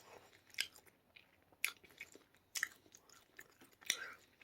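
A person chewing a mouthful of food close to the microphone, with wet mouth clicks and smacks about once a second.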